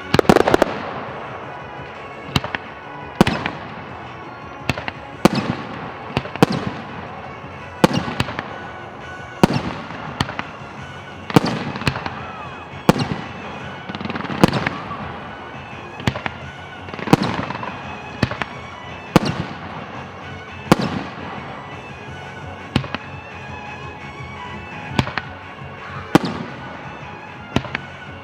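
Aerial firework shells bursting one after another, a sharp bang about every second or so, each trailing off in a fading echo, with background music playing underneath.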